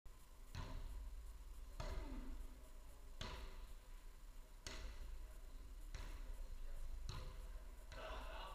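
A footvolley ball being struck by players during a rally: about seven sharp thuds, a little over a second apart, each echoing in a large hall.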